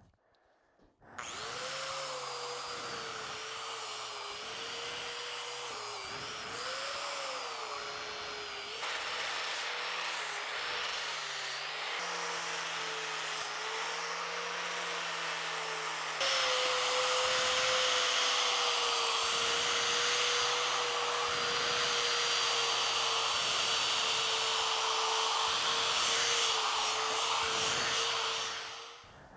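Electric angle grinder with a flap disc grinding a steel power hammer die, taking the sharp edges off it. The motor runs steadily, its pitch dipping now and then as the disc bears on the steel, and it gets louder about halfway through.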